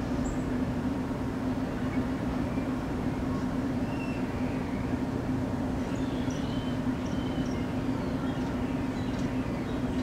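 A songbird perched on a wire gives faint high whistles and chirps, mostly from about four seconds in, over a steady low rumble with a constant hum.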